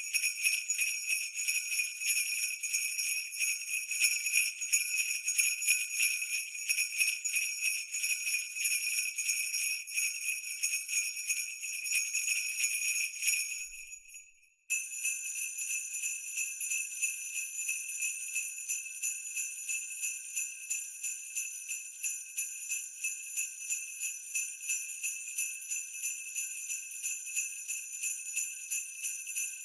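Sleigh bells shaken continuously in a steady rhythm, their bright jingling ringing on. About fourteen seconds in the ringing fades away to nothing, then starts again abruptly a moment later.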